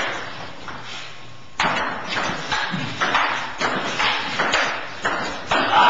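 Table tennis rally: the plastic ball clicks off paddles and the table about twice a second in a quick back-and-forth.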